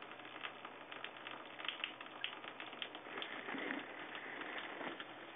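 A cat lapping at a thin stream of water running from a bathtub tap: quick, irregular tongue clicks and small splashes over the steady trickle of the tap.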